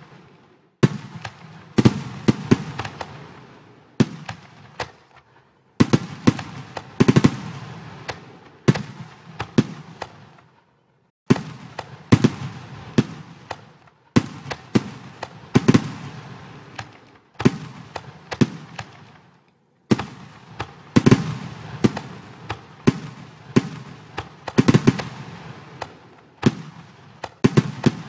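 Fireworks bursting one after another: sharp bangs, each followed by a crackling tail that fades, in volleys every second or two with a few brief lulls.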